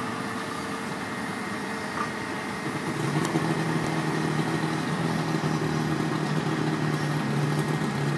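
Heavy machinery engine running steadily. About three seconds in, a deeper, stronger engine note comes in and holds, as the machine works harder.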